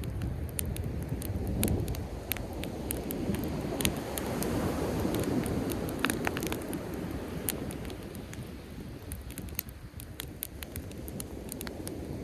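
Driftwood campfire crackling, with scattered sharp pops and snaps, over a low, steady rush of sea waves that swells midway and then ebbs.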